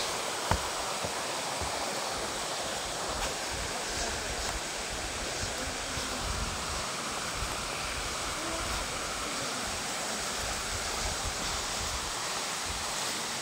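Steady rush of flowing mountain water, with a short knock on the microphone about half a second in.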